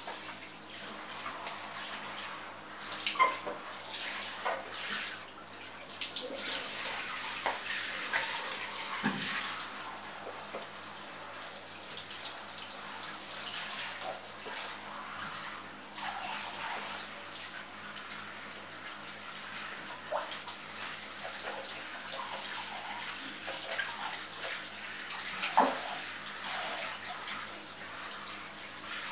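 Handheld shower head spraying water over a wet poodle in a plastic basin, the water splashing into the basin. Two sharp knocks stand out, about three seconds in and a few seconds before the end.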